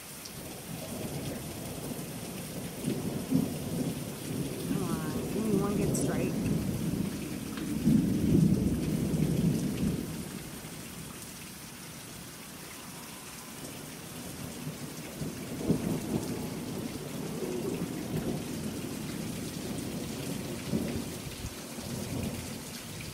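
Thunder rumbling in long, low swells over steady rain. The loudest rumble comes about eight to ten seconds in, with weaker ones before and after.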